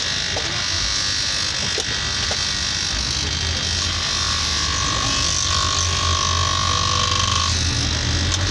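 Electric bench grinder running with a sanding wheel, the edge of a rubber flip-flop sole pressed against it and sanded: a steady motor hum under a hiss of abrasion. A higher steady tone comes in about halfway through and holds for a few seconds.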